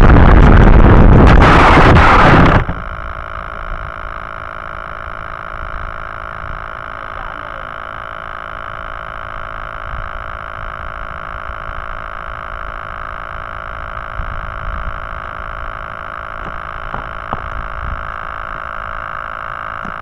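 Rushing air and the electric pusher motor of an AXN Floater Jet RC plane in low, fast flight, heard through its onboard camera. The sound cuts off abruptly about two and a half seconds in as the plane comes down on the road. After that a steady electronic whine made of several tones remains, with a few faint taps near the end.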